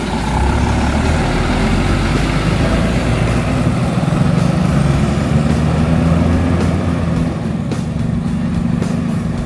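Intercity coach's diesel engine running as the bus drives slowly past close by and pulls away, a steady low hum.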